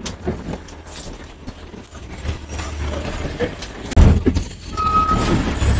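Inside a city bus: metal fittings rattle and click over a low engine and road rumble. The rumble jumps suddenly louder about four seconds in, and a brief high-pitched tone sounds about a second later.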